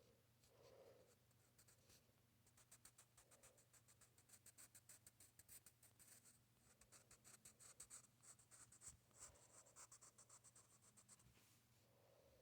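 Faint, quick scratching strokes of a drawing tool on paper, several strokes a second, busiest from about two seconds in until near the end, over a low steady hum.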